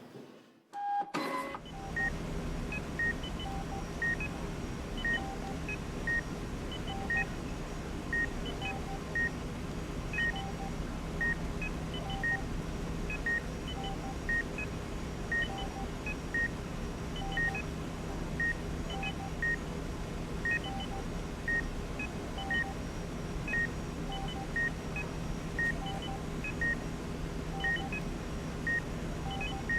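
Short electronic beeps repeating evenly, about one a second, over a steady low hum. They start after a brief silence.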